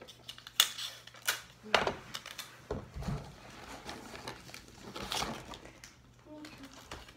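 Clear sticky tape being pulled and torn from a desk dispenser and pressed down onto a paper cutout, heard as a handful of short, sharp crackles and taps over the first five seconds, then quieter paper handling.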